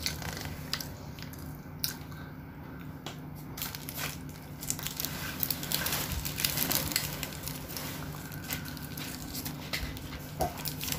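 Paper sandwich wrapper crinkling and rustling as a chicken sandwich is unwrapped by hand: a run of small crackles, busiest in the middle.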